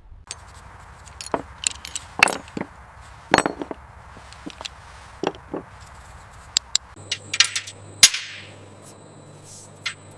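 Irregular sharp clinks and taps of hand tools working on a hard object. About seven seconds in, the background changes to a steady low hum.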